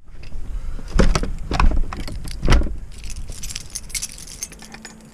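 Three or four dull, heavy thumps in the first two and a half seconds, then a light metallic jingling and clicking that fades toward the end.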